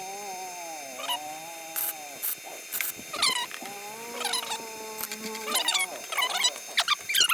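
Animal calls: long wavering pitched tones with quick high chirps over them.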